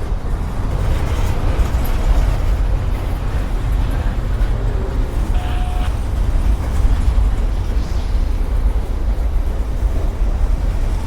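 Norfolk Southern mixed freight train rolling past close by, a steady, loud low rumble.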